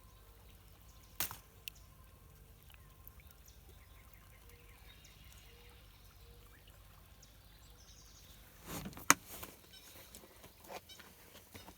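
Quiet outdoor background broken by a few sudden sharp knocks, one about a second in and a louder cluster about nine seconds in.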